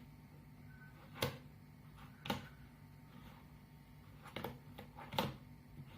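A 7×7 Rubik's cube handled and turned: four short, sharp plastic clicks spread unevenly over a few seconds, over a steady low hum.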